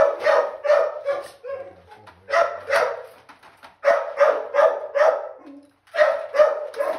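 A dog barking in four quick runs of several barks each, with short pauses between the runs.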